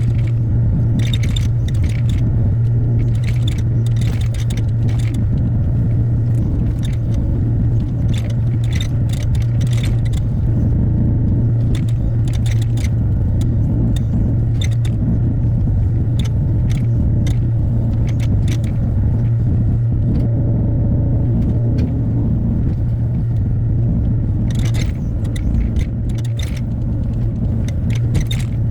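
Hyundai HX60A excavator's diesel engine running steadily under work, with repeated sharp clanks and scrapes from the bucket and attachment working material.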